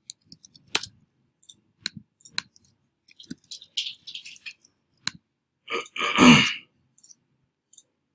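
Scattered clicks of typing on a computer keyboard and a mouse. About six seconds in, a person makes a short, loud throat noise like a cough.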